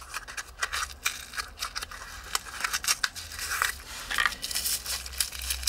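Packaging being handled and opened by hand: irregular crinkling, rustling and small clicks.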